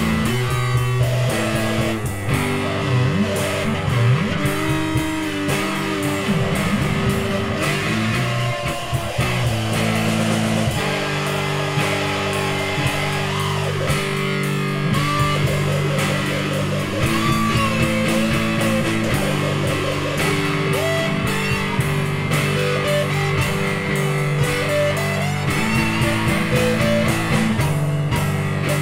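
Instrumental psychedelic rock jam: electric guitars play held chords and sliding, bending lead notes over drums.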